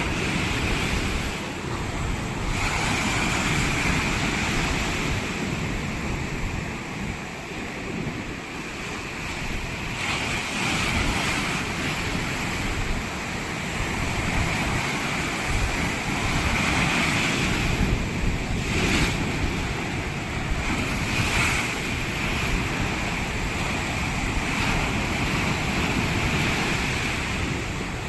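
Ocean surf breaking and washing on a beach, a continuous rush that swells and eases over several seconds, with wind rumbling on the microphone.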